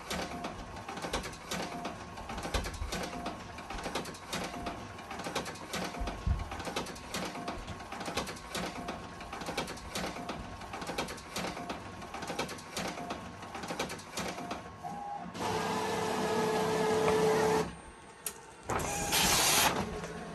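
Epson SureColor F570 wide-format dye-sublimation printer printing normally with its newly fitted print head: the carriage shuttles back and forth with a regular click and whir about once a second. Near the end comes a louder steady mechanical run of about two seconds, then a short loud rush.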